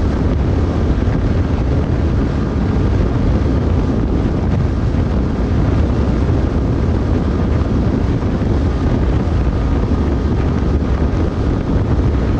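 Heavy wind rush on the microphone at motorcycle top speed, over the steady drone of the Honda X-Blade's single-cylinder engine held at full throttle.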